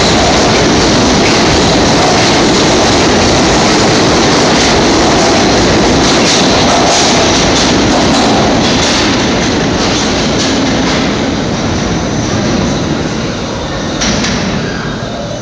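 New York City subway train departing an underground station, its cars running past loudly on the rails. The noise eases from about nine seconds in as the train pulls away down the tunnel.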